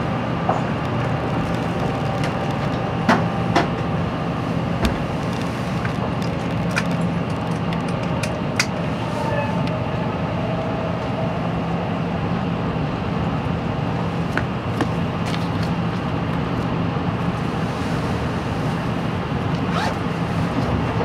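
Steady running noise of an N700 series Shinkansen at speed, heard inside a motor car with its traction motors underneath. A low hum runs under it, with a few sharp ticks in the first half.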